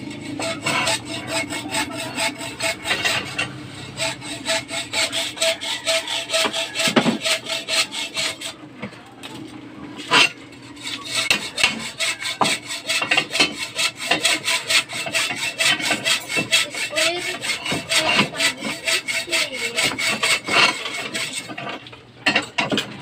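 Hacksaw cutting through steel reinforcing bar with quick, steady back-and-forth strokes, the blade rasping on the metal. The strokes thin out briefly near the middle, and a single sharp clank comes as they start again.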